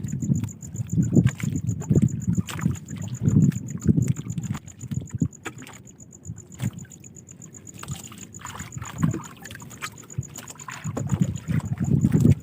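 Water slapping and sloshing against a small boat's hull in uneven surges, with some wind on the microphone and a faint steady high whine throughout.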